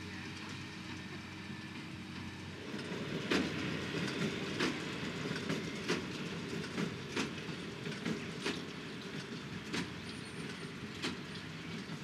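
Fendt 820 Vario tractor running steadily while pulling a New Holland BigBaler 1270 baling hay. From about three seconds in, the baler's plunger knocks regularly, roughly once every 1.3 seconds, over a busy mechanical clatter.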